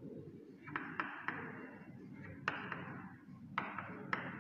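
Chalk writing on a chalkboard: about seven sharp, irregular taps as the chalk strikes the board, with a soft scratchy hiss of the strokes between them.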